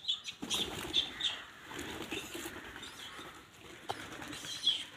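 Birds around a flock of rock pigeons: a few short, high chirps, over low cooing and light pattering.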